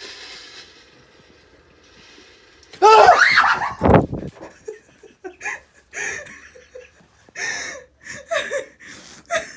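A sudden loud, startled scream about three seconds in, as a person reacts to being told a spider is on his shoulder, followed by a heavy thump. Then repeated short bursts of laughter.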